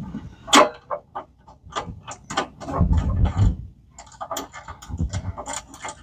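Irregular metallic clicks, knocks and clinks of hand tools and parts being handled while fitting a battery cable, with a few dull thuds about halfway through.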